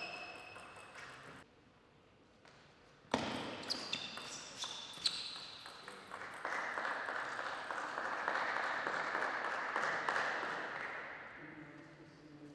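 Table tennis ball being hit back and forth, sharp clicks of ball on paddle and table about twice a second, starting about three seconds in. A few seconds of steady rushing noise follow and fade out near the end.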